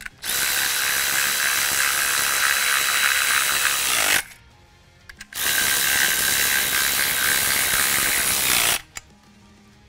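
Milwaukee cordless ratchet with a 1/2 inch socket running down 5/16 nuts on a steel seat slider mount, in two steady runs of about four seconds each with a short pause between.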